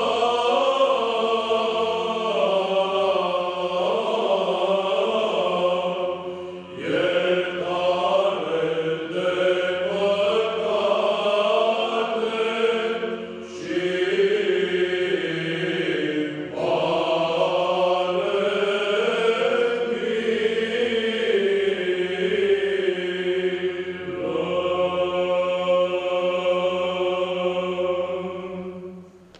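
Male a cappella choir chanting Orthodox church music, the melody moving over a steady held drone, with short breaks between phrases. Near the end the final chord is held and fades away.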